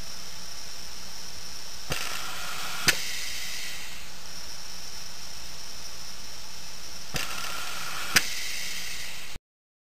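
Steady hiss of an old film soundtrack, with a low hum and a thin high whine, broken by four sharp clicks in two pairs a second apart. It cuts to dead silence just before the end.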